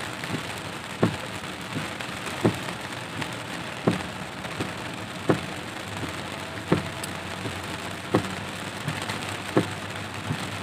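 Heavy rain pelting the car's windshield and roof, heard from inside the cabin, with a short thump about every second and a half as the windshield wipers sweep.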